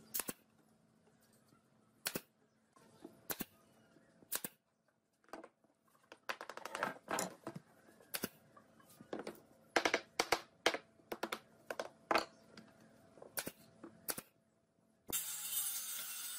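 Pneumatic brad nailer firing nails into a wooden frame: sharp single shots a second or two apart, then quick runs of shots. About a second before the end, a circular saw starts cutting wood with a steady, loud noise.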